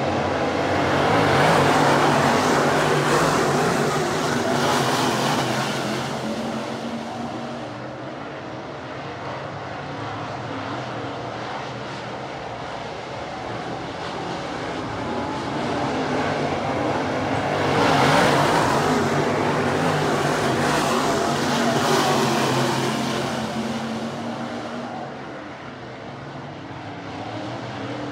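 Dirt late model racecars' V8 engines running laps on a dirt oval. The engine noise swells loud as the cars pass about two seconds in and again around eighteen seconds, and eases off as they go down the far side.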